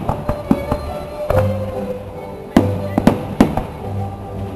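Aerial firework shells bursting in a string of sharp bangs, the loudest about halfway through with several more in quick succession just after. Music with long held notes plays underneath.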